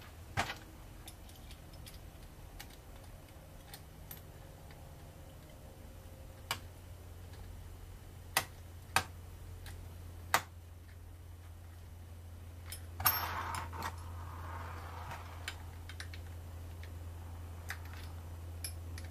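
Scattered metal clicks and clinks of a drill chuck and screw being fitted by hand onto an air-style cut-off tool's arbor, with a short rattling patch about two thirds of the way through. A steady low hum runs underneath.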